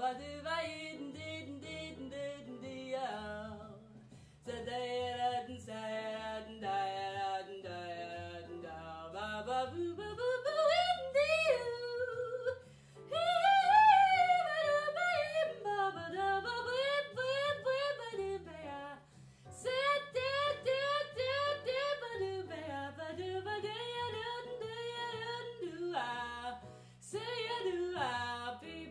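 A woman scat-singing jazz syllables over a backing track, mixing runs of quick short notes with long sliding phrases. The loudest, highest phrase comes about halfway through.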